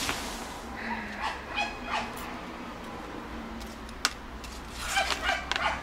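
A small dog yapping in short high-pitched bursts, a couple at a time, about a second in and again near the end. A domino tile clicks down on the table about four seconds in.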